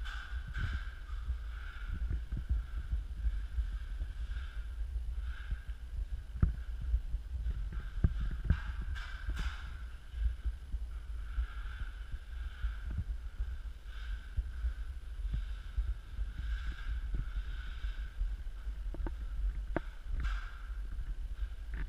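Footsteps scuffing on a bare, dusty subfloor, recurring about once a second, over a low rumble and small knocks of handling noise on a hand-held GoPro.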